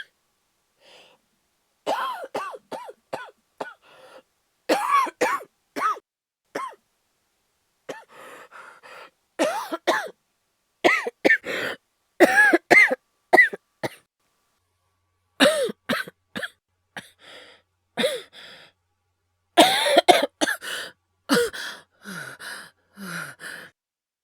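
A male voice actor's acted coughing fit, performed as a sick person: repeated clusters of hard, short coughs with throat clearing, each cluster a second or two apart, and fainter, lower-pitched wheezy breaths near the end.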